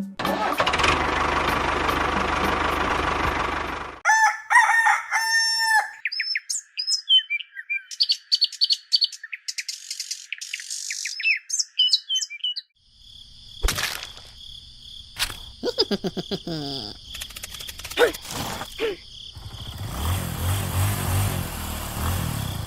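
Bird calls: a few short, chicken-like calls, then a run of high chirping. Scattered clicks and knocks follow in the second half, after a steady noisy hiss at the start.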